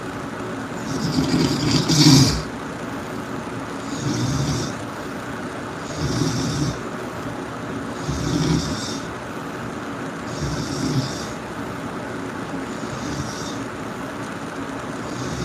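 A person snoring loudly, one rough snore about every two seconds, the loudest of them about two seconds in.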